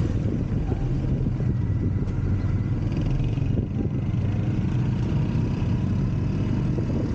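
A road vehicle's engine running steadily while under way, a continuous low hum mixed with road noise.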